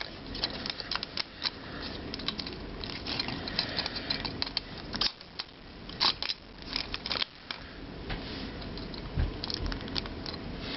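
Hard plastic parts of a Transformers Animated Ratchet action figure clicking and rattling as it is handled and set into robot mode: a run of small irregular clicks.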